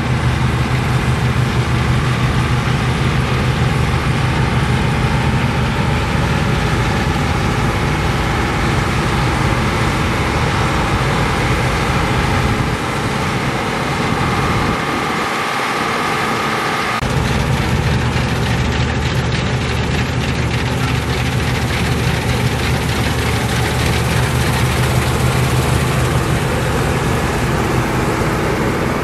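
New Holland combine harvester running steadily as it works, a deep diesel engine hum under a broad mechanical whir. About halfway through, the deep hum drops away for a few seconds, then comes back.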